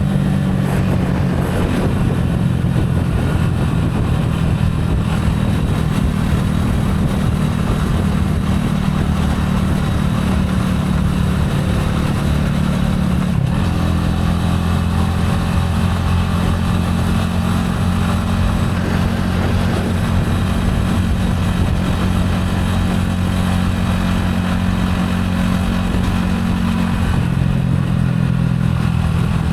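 Gilera AC4 motorcycle engine running under way at fairly steady revs. Its pitch shifts about 13 seconds in, with a brief break, and again near the end.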